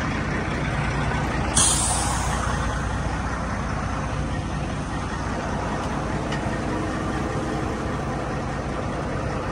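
Heavy-equipment diesel engine running steadily, with a short, sharp hiss about a second and a half in.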